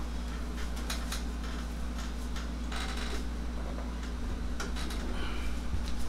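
Light, irregular clicks and ticks from hands working over a knee and leg during a massage, over a steady low hum.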